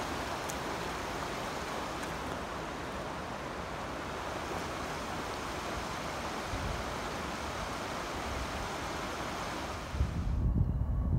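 Steady rush of flooding Missouri River water. About ten seconds in it cuts off suddenly and wind buffeting the microphone takes over.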